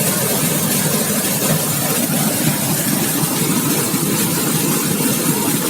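Waterfall pouring into its pool close by: a steady rush of falling water.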